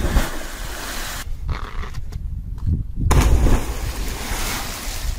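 Two splashes of people jumping from a rock ledge into the sea, about three seconds apart, each followed by a second or two of spray rushing back onto the water.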